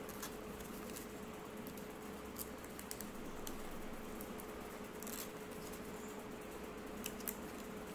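Faint scattered ticks and crackles of a plastic-backed star-sticker sheet and paper being handled as stickers are peeled off and pressed on, over a steady low hum.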